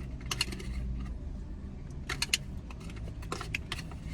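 Light clicks and rattles in three short clusters, over a steady low hum.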